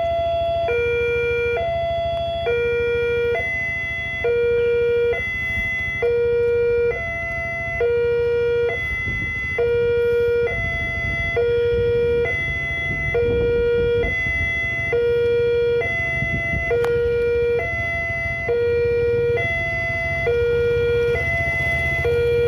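Railway level-crossing warning siren in the Indonesian 'alarm' style, sounding two tones in steady alternation: a higher and a lower tone, each held about 0.7 s, switching back and forth without a break. It signals that the crossing barriers are down for an approaching train.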